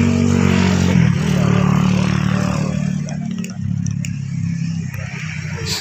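An engine running steadily nearby, loudest about a second in and then gradually fading, with a few light clicks in the second half.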